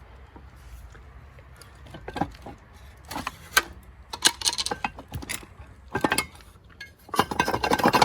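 Metal parts of a jack-driven propeller-hub press clinking and knocking as they are handled, in scattered strikes from about two seconds in that grow into a denser clatter near the end.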